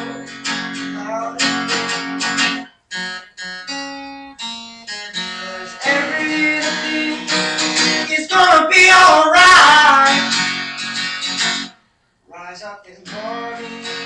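Solo acoustic guitar playing an instrumental break: strummed chords, then a few seconds of single picked notes, a louder strummed passage near the middle, and a short pause about twelve seconds in before the strumming resumes.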